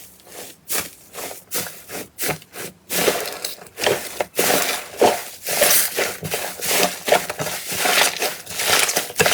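Crunchy slime being pressed and squeezed, crackling and crunching: scattered crackles for the first three seconds, then a dense run of them.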